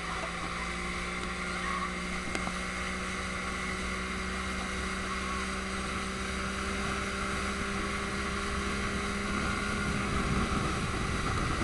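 Motorboat engine running steadily at towing speed, a constant hum over water rushing in its wake, a little louder near the end.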